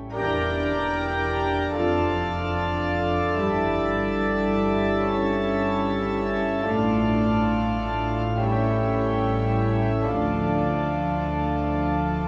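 Organ playing slow, sustained chords, the harmony changing every couple of seconds.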